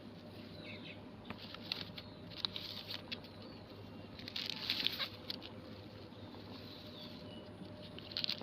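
Crinkling and rustling of old plastic and dry weeds being pulled and handled, in short irregular bursts with small clicks, loudest about four to five seconds in.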